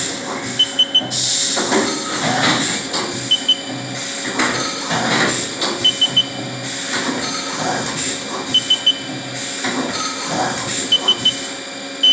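Haas VF-2SS CNC vertical mill running a machining cycle inside its enclosure, with uneven cutting noise and repeated short bursts of hiss. A short triple beep repeats about every two and a half seconds.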